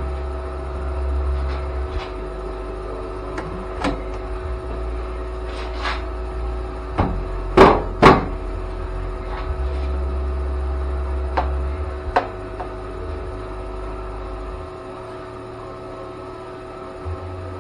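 Scattered knocks and clunks from handling and fitting a sheet-metal body panel, two loud ones close together about midway, over a steady electrical hum.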